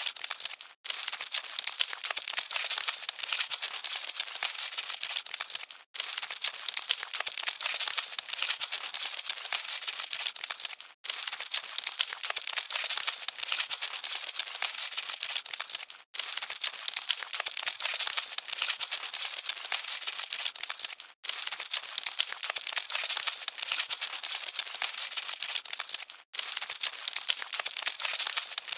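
Dense, fine crackling rustle of scuttling cockroaches, all in the high register with no low sound. It is a short loop that drops out for a split second about every five seconds before starting again.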